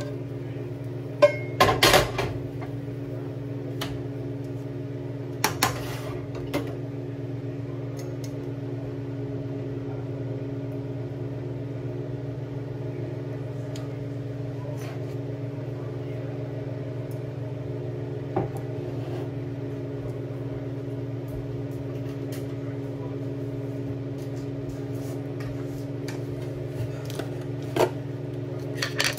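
Steady hum of a kitchen appliance's motor, with a few sharp clatters of pots and utensils: a couple of seconds in, around six seconds, and near the end.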